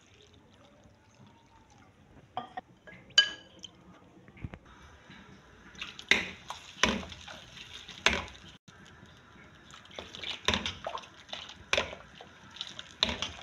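Cornstarch slurry being stirred into a pan of soup with a metal spoon: liquid sloshing, with the spoon clinking and scraping against the pan about once a second from halfway on. Earlier there are a few clicks, one ringing clink from the spoon against the ceramic plate where the cornflour is mixed with water.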